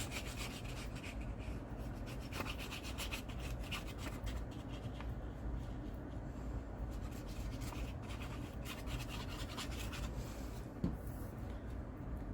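Glue being rubbed onto the back of a paper piece: quick repeated rubbing strokes on paper, densest in the first few seconds, then lighter and more spaced.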